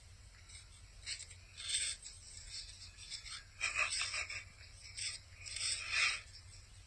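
A dog biting into and crunching a raw apple held in a hand: a series of short crisp crunches, coming closer together in the second half.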